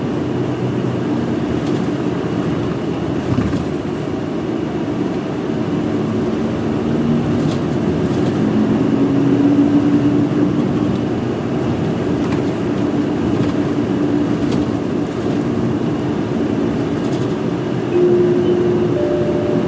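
Route bus heard from inside the passenger cabin while under way: a steady engine and road drone. Its engine note climbs for a while in the middle and shifts again near the end as the bus changes speed.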